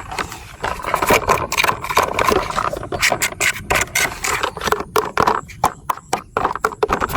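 A large plastic toy cement mixer truck being handled: irregular scraping, rubbing and clicking.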